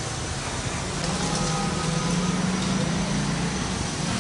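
Steady rumbling hiss of a steaming pot of beef ribs boiling on the stove, with a low steady hum under it.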